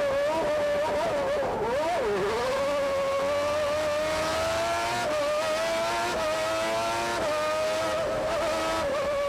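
McLaren MP4/6B's Honda V12 Formula One engine at high revs, heard onboard. The note dips about two seconds in, then climbs steadily with quick drops at upshifts around five and seven seconds in, and then holds high.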